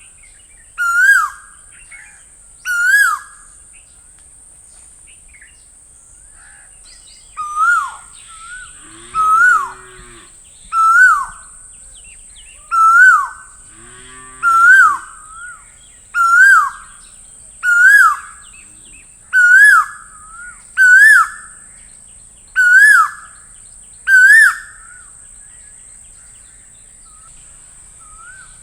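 Asian koel, a male, giving its repeated ringing call: single notes that rise and then fall, about one every one to two seconds. Two notes, a pause of a few seconds, then a run of about eleven more. Twice near the middle a lower, hoot-like call sounds, and a steady high hiss runs underneath.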